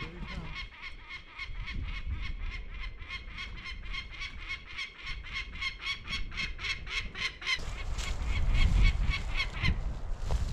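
A bird of prey giving a rapid, even series of sharp alarm calls, about four or five a second, which stop shortly before the end. It is calling because it has a nest nearby and is trying to drive people away. Wind gusts rumble on the microphone, stronger in the second half.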